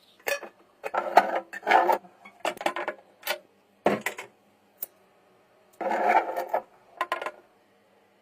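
Irregular short bursts of scraping and rubbing, hard objects being handled and rubbed together, with a single sharp click about five seconds in.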